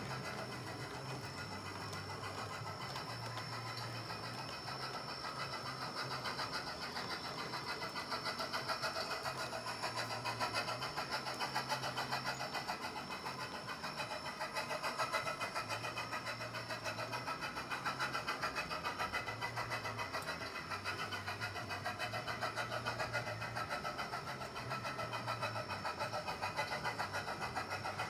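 1:24-scale model train running on its track: a steady motor and gear whirr with fast clicking of the wheels over the rails, a little louder from about eight seconds in.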